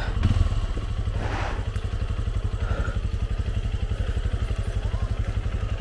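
Motorcycle engine running steadily at low revs, an even rapid low pulsing, with a brief rattle about a second and a half in.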